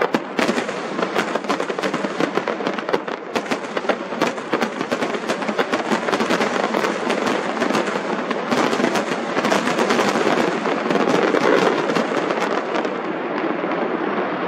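Aerial firework shells bursting in a dense, rapid barrage of bangs and crackles. Near the end the sharp cracks thin out.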